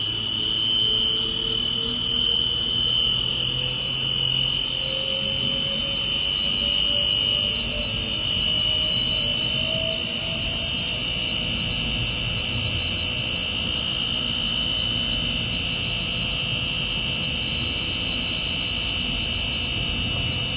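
1600-litre double sigma-blade kneader mixer's drive running with the blades turning in reverse, a whine rising in pitch over the first ten seconds or so as it is brought up to top speed, then holding steady. A steady high-pitched whine and a low rumble run underneath.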